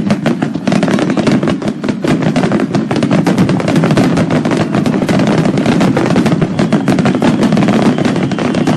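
Fireworks going off in a dense, unbroken run of rapid cracks and pops, many per second, starting suddenly and keeping up throughout.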